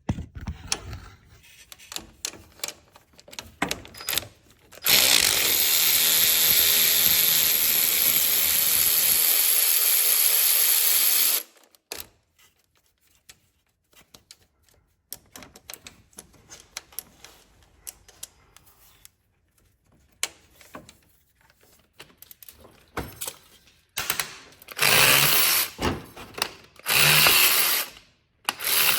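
Cordless power tool spinning a socket through a non-impact universal swivel to back out a car AC compressor's top mounting bolt. It makes one long steady run of about six seconds. Then come light clicks and taps of the tools, and several short bursts of the tool near the end.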